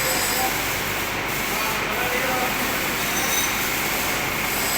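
Lathe cutting a square thread on a stainless steel shaft: a steady scraping noise of the tool on the metal, with a few brief faint squeaks.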